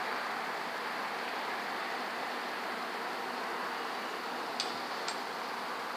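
Steady background hiss, with two faint clicks about half a second apart near the end.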